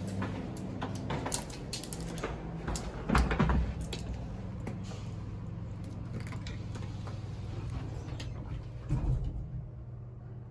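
Handling noise from a hard-shell carry-on suitcase: clicks and knocks of its telescoping handle and shell, over a steady low hum, with a heavier thump about three seconds in and another near nine seconds.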